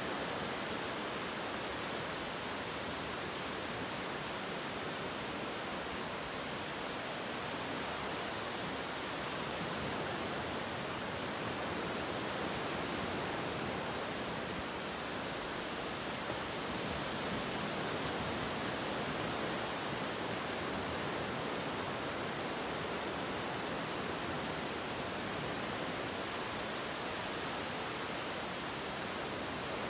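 Steady, even rushing hiss that does not change, like static or a constant flow of water, with no distinct events.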